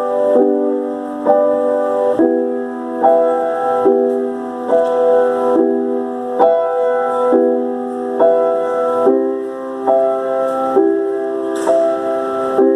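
Piano played in a steady pulse of held chords, one struck a little under every second, all in the middle range with no low bass notes.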